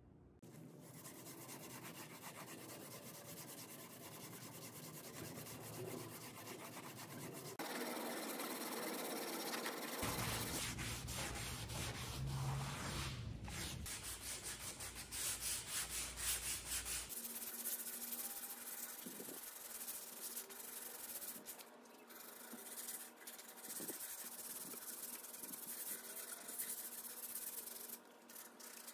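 Hand-sanding a turned wooden desk leg with fine-grit sandpaper on a pad: quick back-and-forth rubbing strokes, loudest through the middle.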